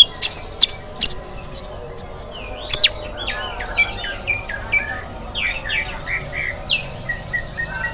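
Oriental magpie-robin singing: a few sharp, loud notes in the first second, then from about three seconds in a quick run of varied short notes.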